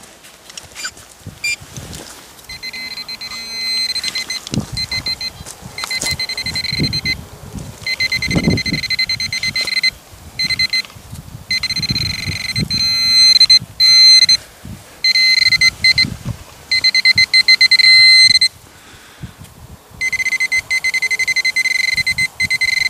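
Garrett handheld pinpointer sounding its high alarm tone as its probe is worked through loose soil to locate a buried target. The tone comes in long stretches broken by short gaps, with fast pulsing in places. Soil scraping and crunching runs underneath.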